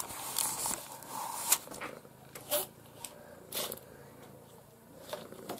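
Paper and small objects being handled on a desk: soft rustling with several short, sharp clicks about a second apart.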